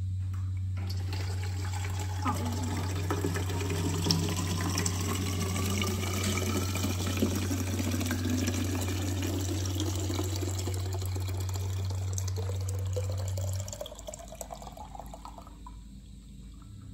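Milk replacer running from a mixer's spout valve into a plastic calf bottle, the pitch of the pour rising as the bottle fills. A steady low hum runs underneath and cuts off about three-quarters of the way through.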